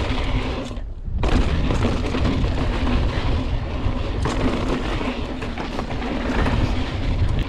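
Wind buffeting the camera microphone and a mountain bike rattling over rough trail at speed on a descent, with a short lull about a second in.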